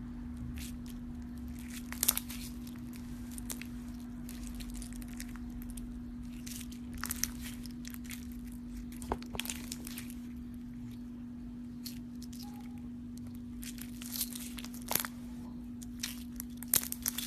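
Slime being handled and pulled apart: irregular sticky crackles and tearing snaps, a few of them sharper, over a steady low hum.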